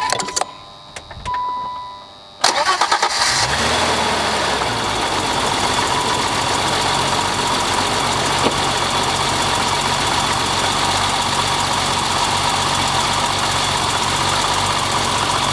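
BMW E30 engine starting a little over two seconds in and settling into a steady idle.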